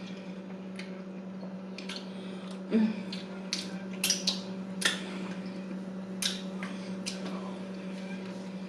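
Close-up eating sounds: chewing with scattered wet mouth clicks and smacks from a sauce-laden burger, a louder knock about three seconds in, over a steady low hum.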